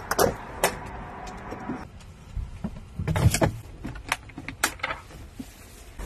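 Clicks of a motorhome's side entry door latch being worked as the door is opened. Then a series of knocks and clicks of a plastic lidded container being handled on a table, with one louder low thump about three seconds in.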